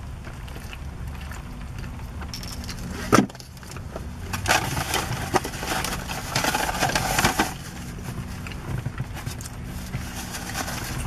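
Close-up eating sounds from a large foil-wrapped burrito: a bite, then chewing, with a sharp click about three seconds in and a few seconds of crackly rustling from the foil wrapper in the middle, over a steady low hum.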